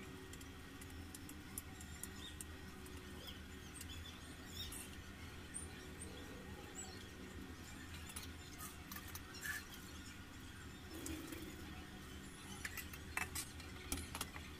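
Quiet kitchen sounds: a knife clicking as a vegetable is cut by hand over a steel bowl, over a steady low hum, with a few faint high chirps. Near the end a handheld spark lighter clicks several times as the gas burner is lit.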